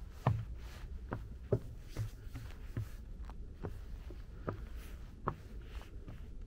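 Footsteps of a hiker walking a mountain trail at a steady pace, a little over two steps a second, each step a short knock.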